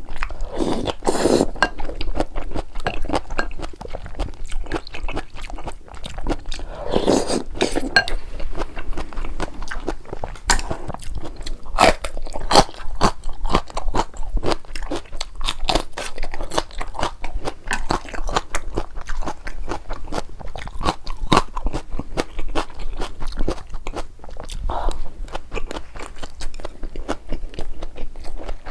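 A person chewing and crunching food close to the microphone, with many quick crunching clicks following one another throughout.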